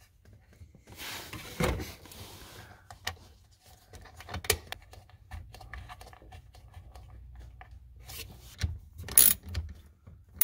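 Small clicks, taps and rubbing of bolts, washers and hand tools as bolts are started by hand into a car's shifter base. A few louder knocks of metal come near the end.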